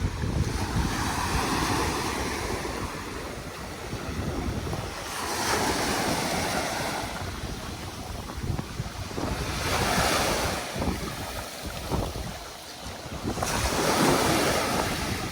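Surf breaking on a sandy beach, the wash swelling and fading about every four seconds, with wind buffeting the microphone.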